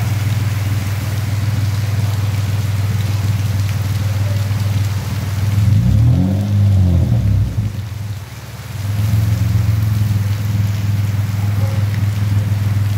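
Car engine idling steadily through an aftermarket dual-tip exhaust. About halfway through it is revved once, rising and falling in pitch. It dips briefly, then settles back to idle.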